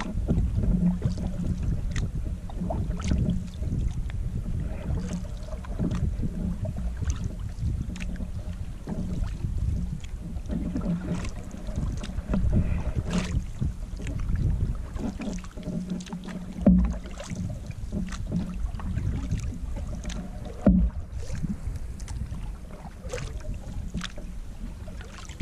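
Canoe paddling: paddle strokes in the water, with water washing and dripping along the hull, over a steady low rumble of wind on the microphone. Two sudden thumps stand out in the second half, about four seconds apart.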